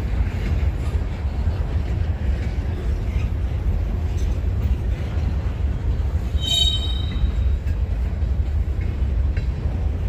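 Train rolling past with a steady low rumble from its cars, and a brief high wheel squeal about six and a half seconds in.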